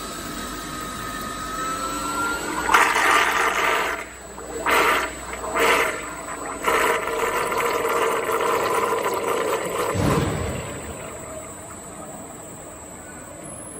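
Water churning and splashing in the stainless mixing vessel of an RX-10L lab vacuum homogenizer mixer as its scraper agitator runs, over a faint rising whine at first. The sound swells into several loud surges from about three to ten seconds in, then settles to a quieter, steady wash.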